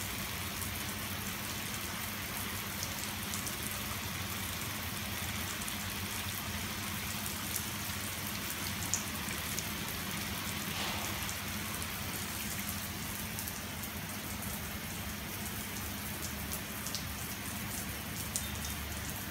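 Water from an open garden hose spraying and splashing steadily onto a pebble-tiled floor and wall, a continuous hiss like heavy rain on a hard surface.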